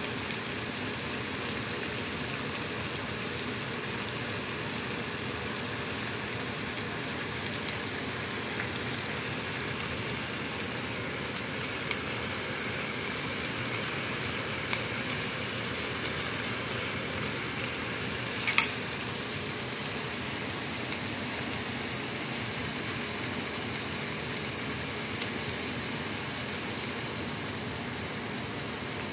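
Chicken breast, green bell pepper and onion frying in sesame oil in a wok: a steady sizzle. A single sharp click comes about two-thirds of the way through.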